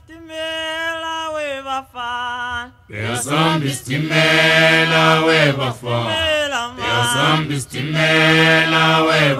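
Unaccompanied choral singing on a music soundtrack. A single voice holds a phrase, then a full group of voices with deep low parts comes in about three seconds in.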